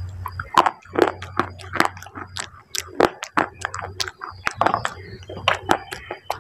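Close-up crunching and chewing of small baked clay pieces: a quick, uneven run of sharp crunches, with a steady low hum underneath.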